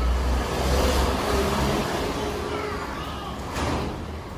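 A motor vehicle passing by: a low engine rumble that swells over the first second or two and then fades.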